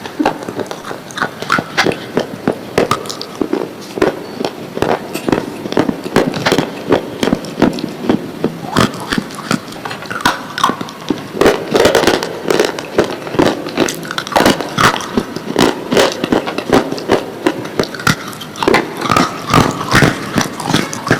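Slate pencils being bitten and chewed: a steady run of sharp, crisp crunches, several a second, as the brittle slate breaks between the teeth.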